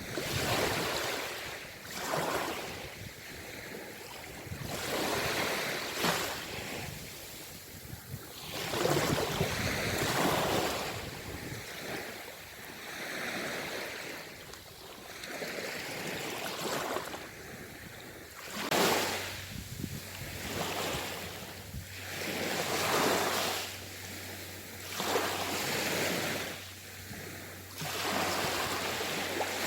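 Sea waves breaking and washing in, one surge after another every two to four seconds.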